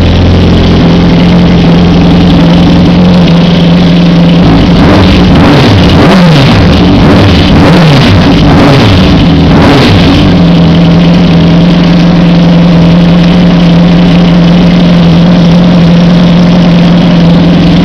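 2004 Honda CBR600RR inline-four running through a Jardine aftermarket exhaust, freshly rebuilt with two new exhaust valves. It idles steadily, is blipped up and down in a run of quick throttle revs for about five seconds midway, then settles back to a steady idle.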